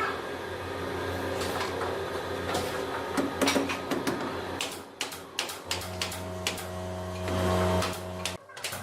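An electric motor of a woodworking machine humming steadily, with a run of sharp clicks and knocks of wood being handled. The hum swells about six seconds in, then cuts off abruptly.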